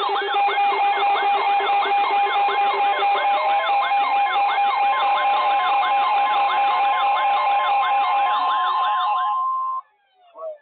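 Emergency Alert System alert tones: steady electronic tones overlaid with a siren-like pitch sweep repeating about twice a second. It is loud throughout and cuts off abruptly just before the end.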